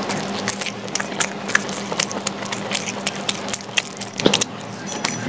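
Close-up eating sounds of a man chewing and slurping a mouthful of masala Maggi instant noodles, with many wet mouth clicks and smacks, over a low steady hum.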